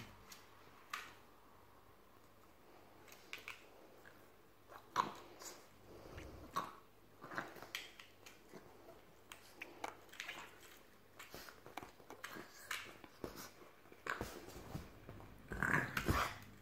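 A Boston terrier's paw and teeth tapping and clicking on a plastic fidget spinner in scattered light knocks, with a louder flurry of knocks near the end as the dog lunges and bites at it.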